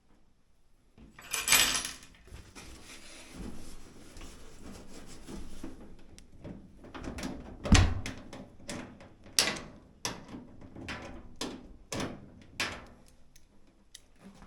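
Dryer sheet-metal cabinet parts being handled and fitted together: a scraping rush about a second in, then a run of sharp knocks and clicks, the loudest a heavy thump about halfway through.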